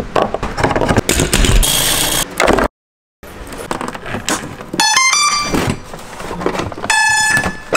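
Rustling and scraping of hands working foam and wiring, broken by a brief cut to silence. About halfway through, a short run of electronic beeps steps up in pitch, and more beeps follow near the end: the startup tones of the RC model's motor speed controllers as the VTOL hardware is powered.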